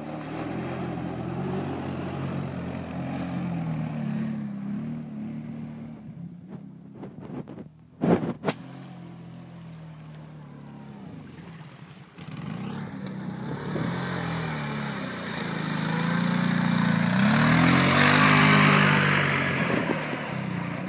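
ATV engine revving up and down as the quad drives through shallow water, its pitch rising and falling. It drops back for a few seconds, with two sharp knocks about eight seconds in, then revs hard again with a rush of splashing water, loudest near the end.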